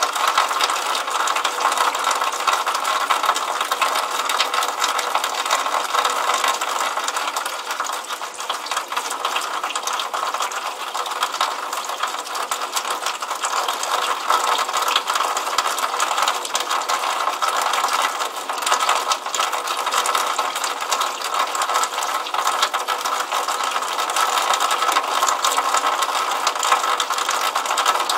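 Water trickling out of a drainpipe and splashing onto wet pavement: a steady, dense run of tiny splashes with no deep sound.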